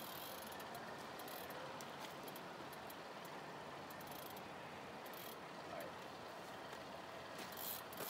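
Penn Conflict 8000 spinning reel's drag clicking faintly and irregularly as a hooked white sturgeon pulls line against the bent rod, over a steady background hiss.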